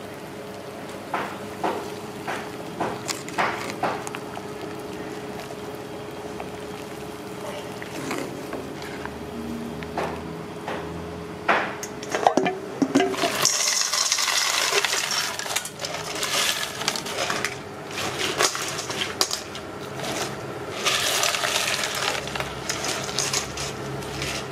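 Metal utensils clinking against an aluminium pot of boiling water, then two spells of splashing and draining water as noodles are lifted out with a strainer.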